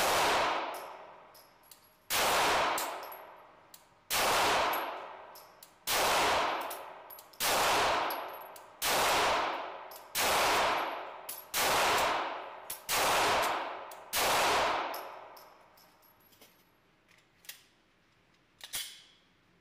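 Ten shots from a 9mm competition pistol, slow fire with the gaps shortening from about two seconds to just over one, each report ringing on in the concrete indoor range. Near the end, a couple of small clicks as the magazine is changed.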